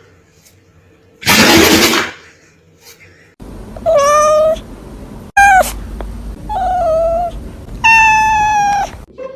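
A cat meowing four times, the last meow the longest. Before the meows there is a short, loud burst of noise.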